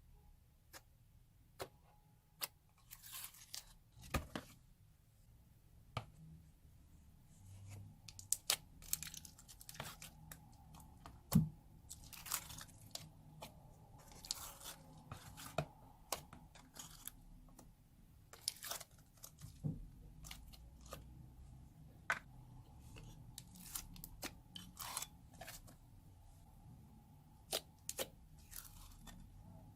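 Slime being kneaded and stretched by hand, giving irregular sharp clicks and pops with short crackling stretches in between.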